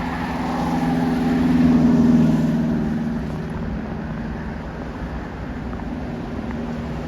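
A road vehicle driving past: a steady engine drone that swells to its loudest about two seconds in, then fades away.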